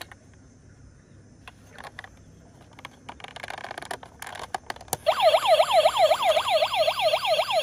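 Quiet plastic handling clicks of a toy fire-service van, then about five seconds in a button click sets off its electronic siren from the built-in speaker: a loud, fast up-and-down wail, about four sweeps a second.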